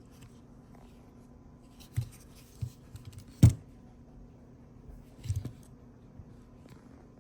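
Small tools and parts handled on a workbench: a few scattered clicks and knocks, the loudest about three and a half seconds in, over a faint steady hum.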